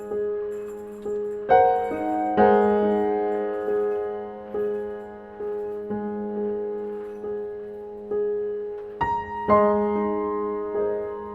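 Slow solo piano music: single notes and chords struck about once a second, each left to ring and fade over a held low note.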